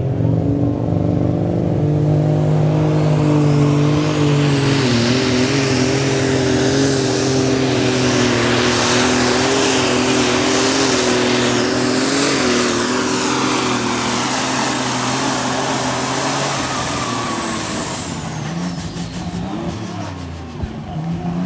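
Super Stock pulling tractor's turbocharged engine at full throttle on a pull, a steady engine note under a high whine. The whine climbs over the first few seconds and holds, then both fall away as the engine backs off about eighteen seconds in.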